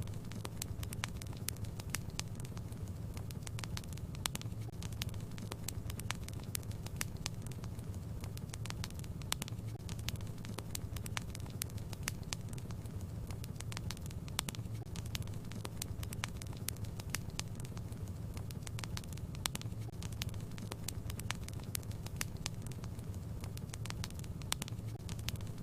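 Wood fire in a fireplace crackling: many irregular sharp pops and snaps over a steady low rumble of the burning logs.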